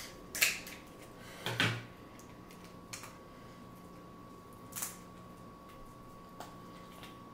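Snow crab legs' shells being cracked and snapped open by hand: five sharp cracks spread over several seconds, the loudest two in the first two seconds.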